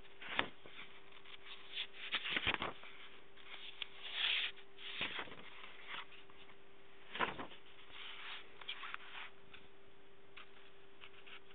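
Pages of an old paper memory book being turned and handled: a run of paper rustles and light taps, the sharpest near the start and about seven seconds in. A faint steady hum runs underneath.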